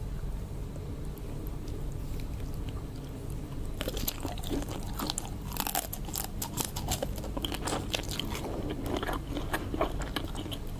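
Close-miked crunching bites and chewing of prawns, starting about four seconds in over a low steady hum.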